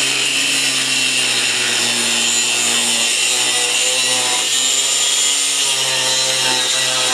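Angle grinder fitted with a new cut-off wheel cutting through 1¼-inch by 1/8-inch steel angle: a steady, loud grinding hiss over the motor's hum, which wavers slightly in pitch as the wheel is loaded in the cut.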